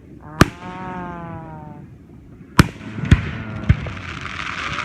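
Fireworks display: aerial shells bursting with sharp bangs, one near the start and three close together in the second half, with crackling hiss building after them.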